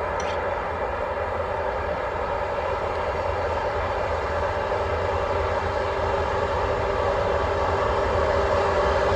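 Diesel locomotive engine running steadily as a freight train approaches, growing slowly louder.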